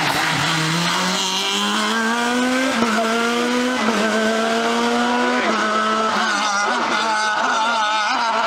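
Rally car accelerating hard out of a hairpin: the engine climbs in pitch and drops back at each of three quick upshifts, then fades as the car pulls away up the road.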